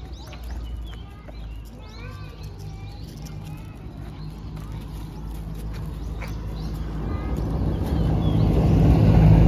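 Birds chirping in short calls during the first half, then a car approaching on the road, its engine and tyre rumble growing steadily louder and loudest near the end.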